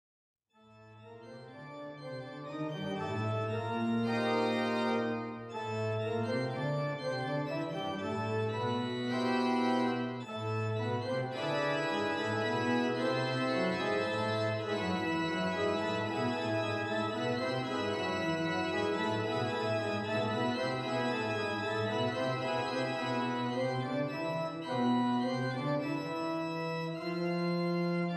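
Organ music: slow, sustained chords that fade in about half a second in and then carry on steadily, changing from chord to chord.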